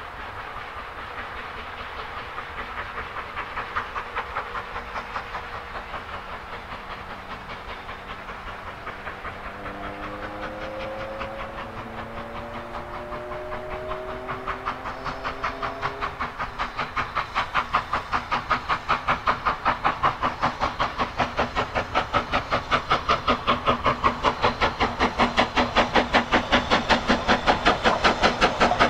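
Steam locomotive hauling a passenger train approaching, its exhaust beats chuffing in a quick, even rhythm of about three a second and growing steadily louder as it draws near. A long steam whistle sounds in the middle, its pitch rising slightly over several seconds.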